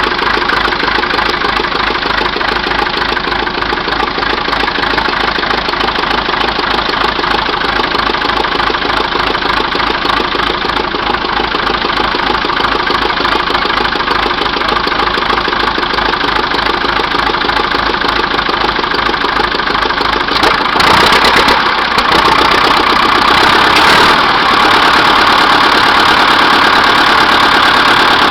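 Old bulldozer engine running steadily after a cold start, with an even pulse, becoming louder about three-quarters of the way in.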